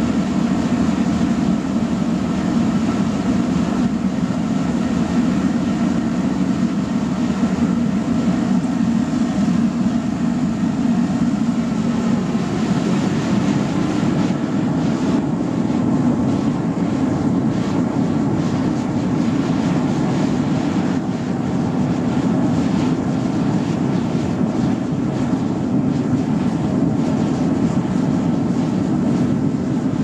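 A blower-fed waste-oil burner firing into a steel-drum furnace: the flame and the air blower make a loud, steady roar.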